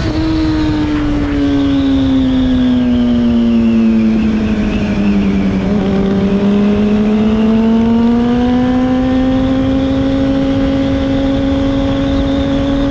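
Honda CBR600RR's inline-four engine heard from the rider's seat, with wind rush over it. The engine note sinks slowly through the first half, then climbs back and holds steady at a cruise.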